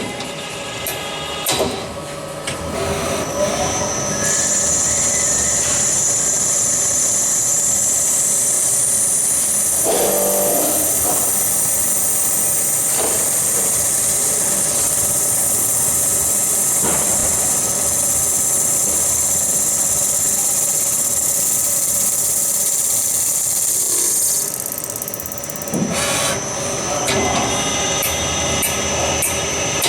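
A small power tool running steadily for about twenty seconds, with a strong high-pitched hiss, then stopping; knocks and handling clatter before it starts and after it stops.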